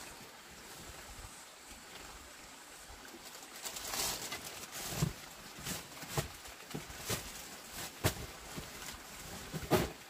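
Plastic bags and cardboard packages being handled and unpacked: a quiet few seconds, then from about four seconds in, scattered rustles, taps and knocks. The loudest knock comes near the end.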